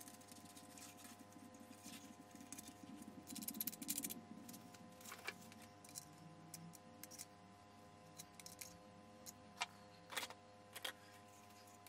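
Faint metallic clicks and taps of brass speaker binding posts being fitted into a 3D-printed speaker enclosure and tightened with a screwdriver. There is a quick flurry of clicks a few seconds in, then scattered single clicks, over a faint steady hum.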